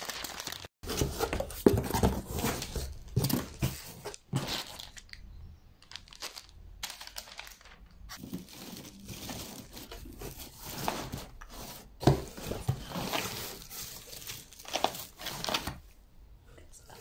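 Paper rustling and crinkling as a printed paper wrapping sheet is pulled out of a cardboard box and shredded paper packing filler is handled, in irregular bursts with louder crackles about two seconds in and again about twelve seconds in.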